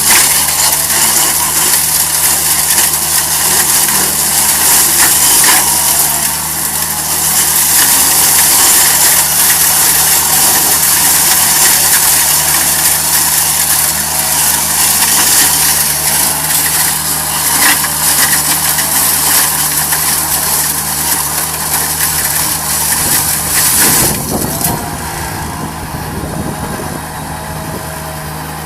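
Engine of tree-cutting machinery running steadily under a loud, dense hissing cutting noise; about 24 seconds in the cutting noise drops away and the engine runs on more quietly.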